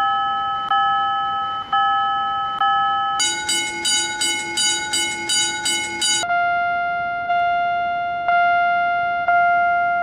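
Railroad level-crossing warning bells ringing in three different tones one after another. First a ding repeating about once a second, then about three seconds of faster, brighter ringing, then a lower ding about once a second.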